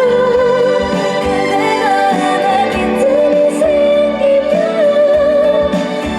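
Trot song performed live: a woman's voice carries a long, wavering melody line, gliding between held notes over band accompaniment.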